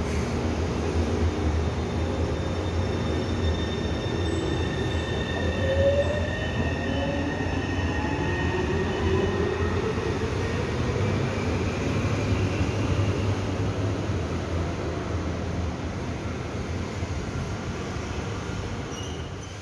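Taipei Metro electric train pulling out of an elevated station: a steady low hum with a rising whine as it accelerates away, growing fainter toward the end.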